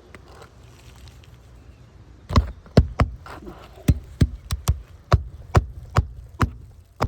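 Roofing hammer driving nails into an asphalt shingle, about a dozen sharp strikes at two or three a second, starting a couple of seconds in, as a lifted shingle is nailed back down.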